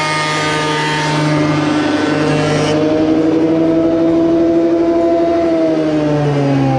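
Electric benchtop thickness planer running with a high motor whine while a wooden blank passes through the cutter head with a loud planing hiss. The hiss cuts off abruptly about three seconds in as the board leaves the cutter. The motor pitch then climbs as it unloads, and sags again near the end.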